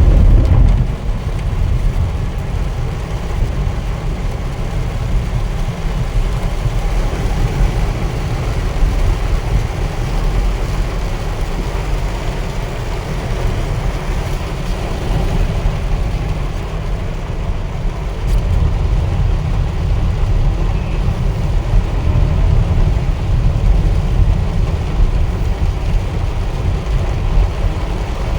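A car driving through heavy rain: a steady low rumble of engine and road with the hiss of tyres on the wet road and rain on the car.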